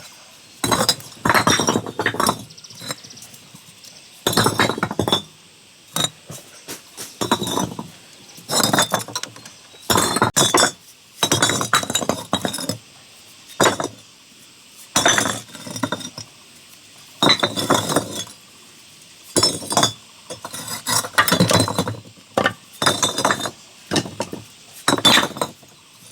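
Repeated gritty scraping and clinking strokes from hand tools working masonry material, about twenty irregular strokes, roughly one a second.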